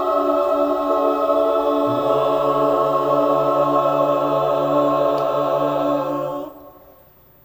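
Mixed choir holding its final chord, with a lower bass note joining about two seconds in. The chord cuts off about six and a half seconds in.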